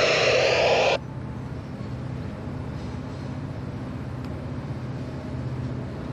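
Railpower genset locomotive's diesel running steadily, with a loud blast about a second long at the very start that begins and cuts off sharply.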